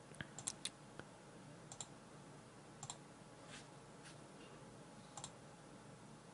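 Faint computer mouse clicks, several scattered single clicks and quick double clicks, over near-silent room tone.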